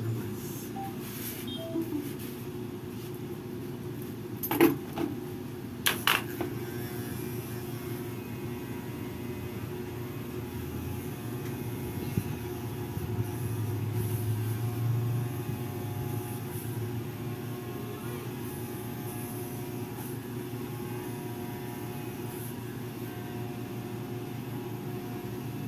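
Corded electric hair clipper buzzing steadily as it trims hair, over a steady background hum, with a few sharp clicks about four and a half and six seconds in.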